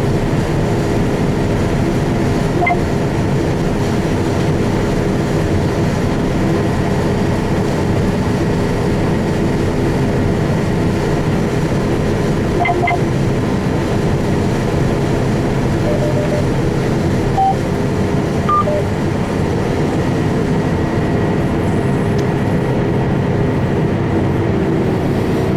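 Combine harvester running steadily while harvesting beans: a continuous, even mechanical drone with a steady hum. A few faint, brief beeps come through it.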